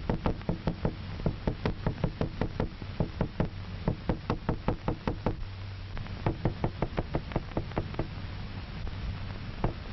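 A hammer knocking rapidly on a hard surface, about four strikes a second. The strikes run for about five seconds, pause briefly, come in a second short run, and one more strike falls near the end.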